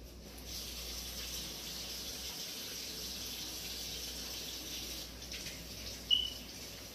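Plantain puff puff dough balls deep-frying in a saucepan of oil, a steady sizzle. There is a brief high-pitched ping near the end.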